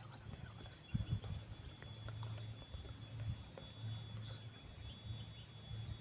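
Insects in the undergrowth chirring, in short trills about a second long that repeat over a steady high whine, with a faint low rumble underneath.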